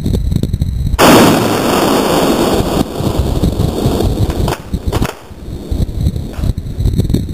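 A single shot from an 8mm Mauser vz.24 bolt-action rifle (8x57mm) about a second in. It is sudden and loud, and its report rings on for a couple of seconds as it echoes before fading.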